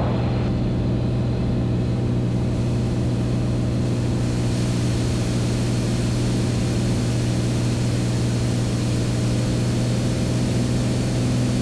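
Beechcraft A36 Bonanza's six-cylinder piston engine and propeller running steadily, heard inside the cockpit on final approach with gear and full flaps down. It is a steady low drone under a rush of air. The rush grows slightly louder about four seconds in, and the engine note shifts a little near the end.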